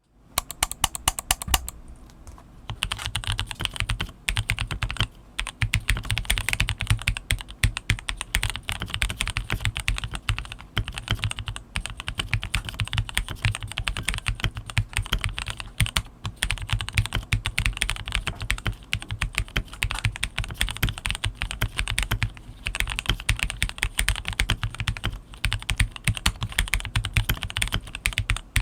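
Typing on an unmodified KBM1800 (James Donkey RS2) gasket-mount mechanical keyboard with milky yellow switches and its stock double-shot keycaps: a fast, continuous stream of keystrokes, with a short lull about two seconds in.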